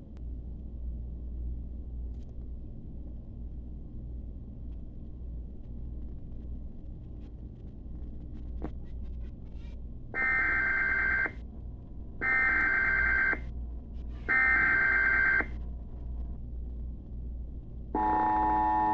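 Emergency Alert System header recorded off TV onto VHS: three bursts of digital data tones, each about a second long and about a second apart, starting about ten seconds in. Near the end the steady two-tone attention signal begins. Before the bursts there is only a low hum.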